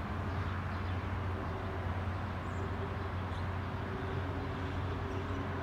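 Steady low hum with an even background noise, without change, and a few faint short high chirps over it.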